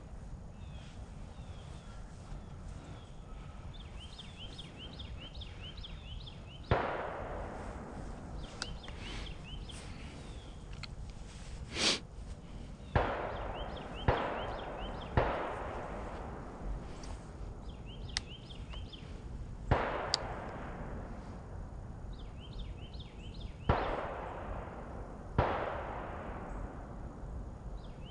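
Shotgun shots during a deer drive, about eight of them at irregular intervals. Each is a sharp crack followed by a rolling echo that dies away over a second or so.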